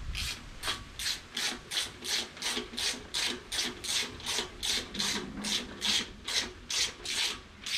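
Hand ratchet wrench being worked back and forth to run down intake manifold bolts, its pawl rasping on each return stroke, about three strokes a second in a steady rhythm.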